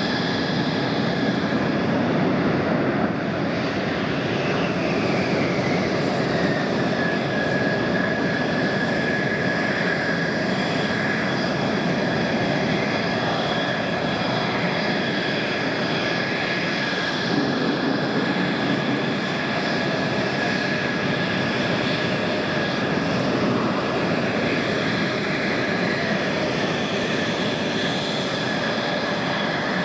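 Mitsubishi F-2 fighter's single F110 turbofan running at taxi power: a steady jet rush with a high turbine whine. The whine glides down in pitch a few seconds in and rises again near the end.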